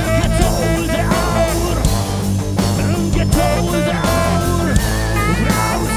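Live funk band playing an instrumental passage: drums, a steady bass line, and a lead line that bends and wavers in pitch over the groove.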